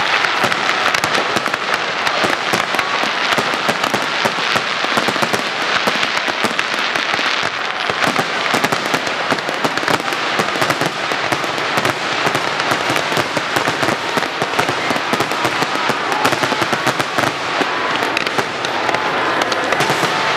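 Aerial fireworks going off in a rapid, continuous barrage: many bangs and crackles a second, with no gap.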